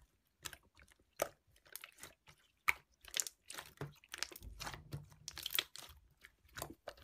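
Keyboard typing: a run of irregular sharp clicks and taps, a few a second.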